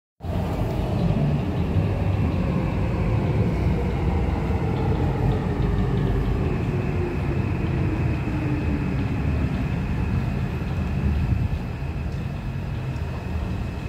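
Kawasaki C151 MRT train with permanent-magnet synchronous (PMSM) traction motors pulling into a station and braking to a stop. Its motor whine glides steadily down in pitch over a heavy wheel rumble, and a steady higher tone joins about halfway through.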